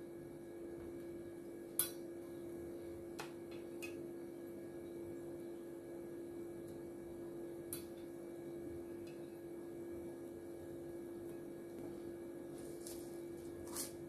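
A steady hum on one constant tone, with a few sharp light clicks and taps of utensils and containers on a metal bowl and the tabletop: a loud one about two seconds in and a small cluster near the end.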